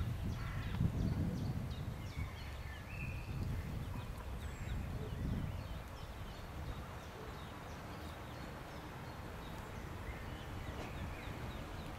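Ducklings peeping: many short, high peeps scattered throughout, over a low rumble that is louder in the first few seconds.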